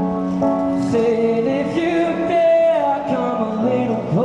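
Music with a voice singing a melody over sustained chords.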